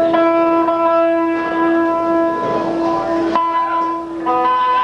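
Hardcore punk band playing live, with the electric guitars holding long, ringing chords that change to a new chord about three and a half seconds in. It is heard through a camcorder's own microphone.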